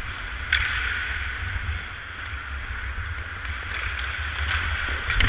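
Ice hockey skates scraping and carving on the ice, with wind rumbling on a helmet-mounted camera's microphone as the wearer skates. A few sharp clacks cut in, about half a second in and twice near the end, the last the loudest.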